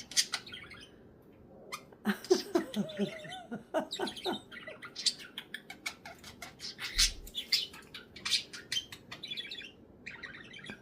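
Budgerigar chattering: a busy run of quick chirps, clicks and short warbles, with a brief pause near the start.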